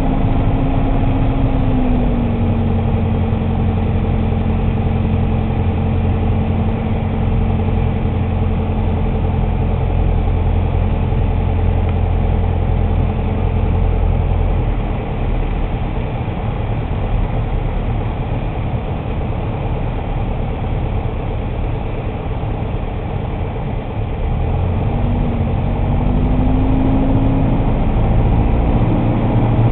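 Piper Archer II's four-cylinder Lycoming O-360 engine and propeller droning steadily, heard inside the cabin on approach. The engine's pitch drops about two seconds in as the throttle comes back, and rises again near the end as power is added.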